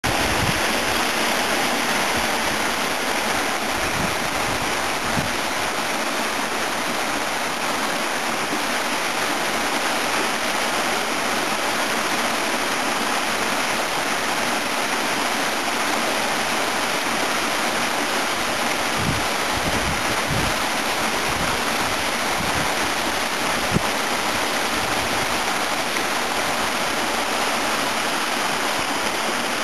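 Water pouring down a waterfall in winter ice, a steady even rush, with a few soft low bumps here and there.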